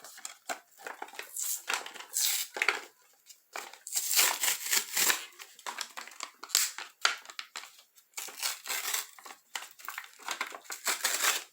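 Yu-Gi-Oh booster pack wrappers crinkling and tearing as the packs are ripped open by hand, in irregular spurts of crackle with short pauses between.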